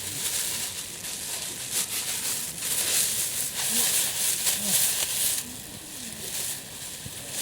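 Food sizzling in a skillet over a wood campfire: a steady frying hiss with sharp crackles from the fire. The hiss swells about three seconds in and drops back a couple of seconds later.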